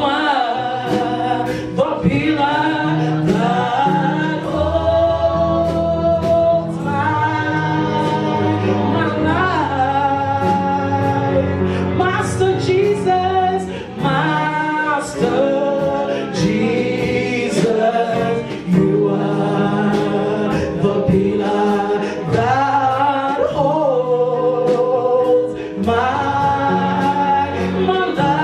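Live gospel worship music: group singing with a choir over band accompaniment, with held bass notes and steady percussion strikes.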